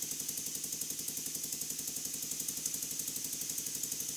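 Burnac Vulcan model steam engine running steadily on a low-pressure supply of about 10 to 15 psi from a hose, giving a rapid, even beat of exhaust puffs.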